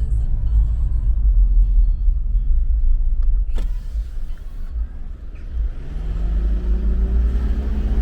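Car driving, heard from inside: a steady low road and engine rumble, with a short knock about three and a half seconds in. From about six seconds in the engine note rises as the car speeds up.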